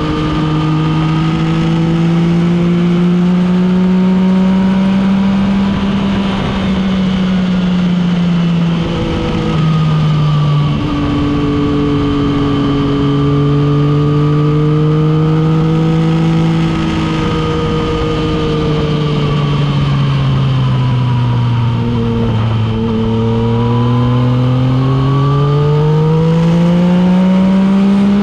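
Motorcycle engine running hard at road speed, its pitch rising and falling with the throttle, with a few brief breaks in the revs. Near the end it sinks low, then climbs steadily as the bike accelerates.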